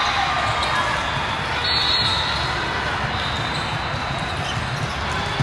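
Busy gymnasium during volleyball play: balls being struck and bouncing on the hard court amid background chatter, echoing in a large hall, with a couple of brief high-pitched tones.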